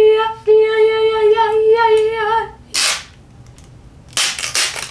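A small dog howling: one long, wavering, high-pitched howl lasting about two and a half seconds. Near the end come a few sharp crackles from the plastic shelf panel being handled.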